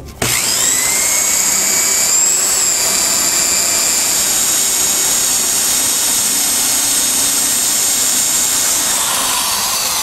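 Power tool motor running steadily at speed, spinning a fan's metal shaft clamped in it for polishing with sandpaper. It starts just after the opening, rises slightly in pitch about two seconds in, and begins to wind down near the end.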